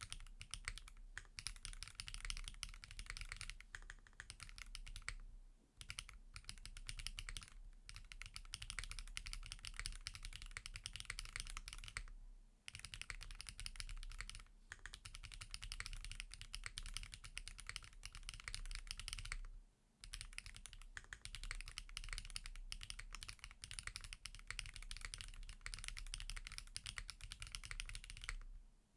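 Fast, continuous typing on a Qwertykeys QK65V2 mechanical keyboard with SWK Yaksu switches, SW Foundation keycaps and an FR4 plate on a flex-cut PCB: a dense run of key clicks, broken by a few short pauses.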